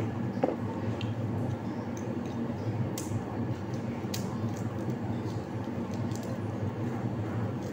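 Garlic cloves being peeled by hand: a few sharp clicks and crackles as fingernails work the papery skins, over a steady low hum.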